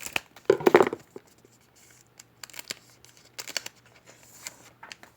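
Baseball card pack wrapper being torn open and crinkled: one loud rip about half a second in, then several shorter crinkles as it is pulled apart.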